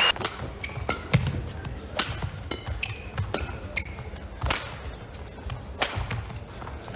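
Badminton rally: rackets striking the shuttlecock in sharp cracks about once a second, with short high shoe squeaks on the court between hits.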